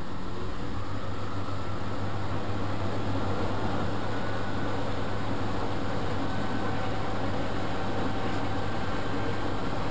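Vintage washing machine running: a steady low motor hum with a faint whine that slowly rises in pitch.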